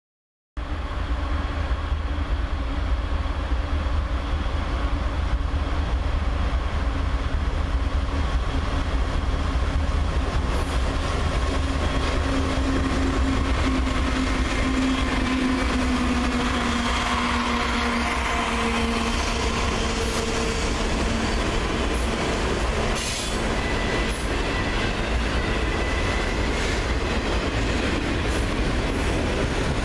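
CSX diesel freight train passing close by: the locomotives' engines give a steady hum that slides slightly lower in pitch as they go past, then the wheels of a long string of autorack cars rumble and clatter on the rails with a few high squeals. It starts abruptly about half a second in.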